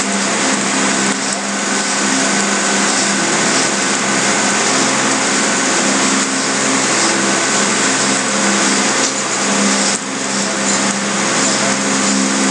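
Steady, loud hiss with a buzzing hum underneath.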